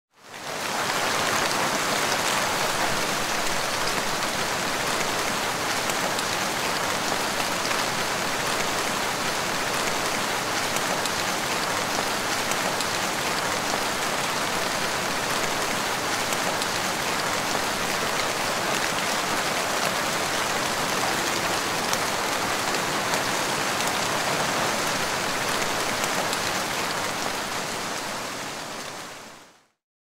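Heavy rain falling steadily, a dense even hiss of many drops. It fades in over the first second and fades out near the end.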